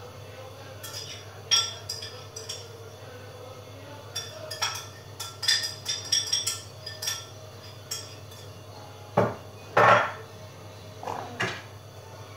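Scattered light clinks and clatter for several seconds, then a few heavier knocks near the end, over a low steady hum.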